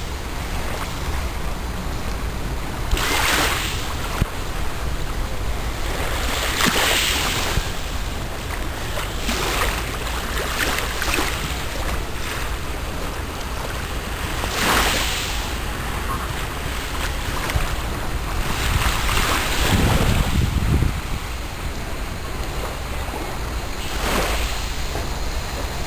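Small Mediterranean waves washing up on a pebble beach, a surge about every four seconds over a steady hiss of surf, with wind rumbling on the microphone.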